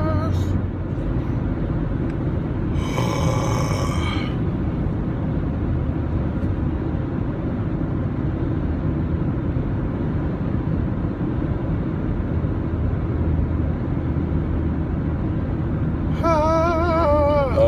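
Steady road and engine rumble inside a moving car's cabin. A man's voice rings out briefly about three seconds in, and he sings a wavering note near the end.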